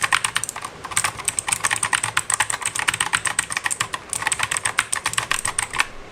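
Rapid typing on an Armaggeddon MKA9C Psycheagle mechanical keyboard with clicky Outemu blue switches: a fast, continuous run of sharp key clicks, with a brief lull about four seconds in.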